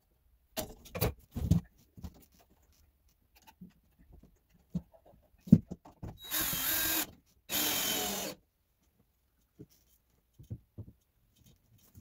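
Cordless drill run twice in short bursts of just under a second each, near the middle, with scattered knocks of handling and a sharp click just before.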